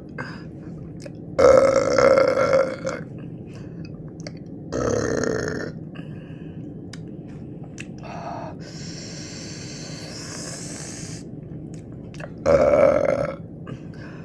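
A person burping loudly, three drawn-out burps: about a second and a half in, about five seconds in, and near the end, with a long hiss in between.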